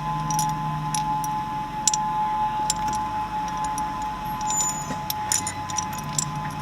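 Tsunami warning siren sounding a steady, unwavering two-pitch tone, heard from inside a moving car. The car's low engine and road hum runs underneath, along with scattered light metallic jingling clicks.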